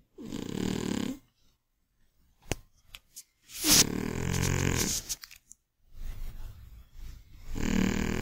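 Scottish Fold cat snoring loudly: three snores a few seconds apart, the middle one the longest, with a fainter breath between the last two.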